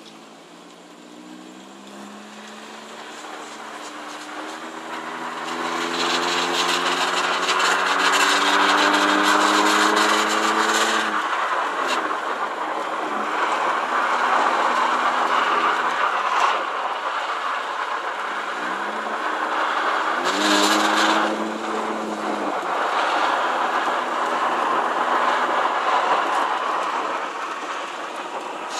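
Perodua Myvi engine pulling under acceleration, its pitch rising steadily, dropping at a gear change about eleven seconds in, then climbing again. Road and cabin noise is mixed with it. The car has a rattle that comes on when accelerating, especially at low rpm or climbing hills.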